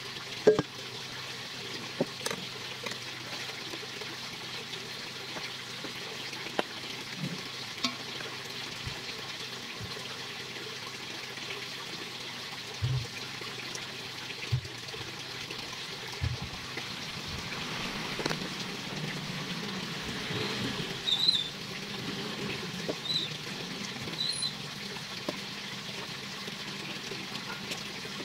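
Chef's knife slicing raw chicken breast on a plastic cutting board: scattered soft knocks and taps of the blade and meat on the board over a steady background hiss.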